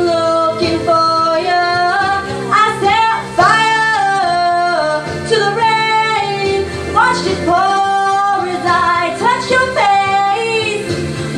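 A woman singing with long held notes that glide up and down between pitches, over backing music.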